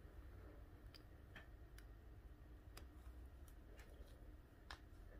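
Near silence broken by faint, irregular clicks, about half a dozen, as the pressure-sensitive clips of a human-hair topper are snapped open and shut into the hair at the crown.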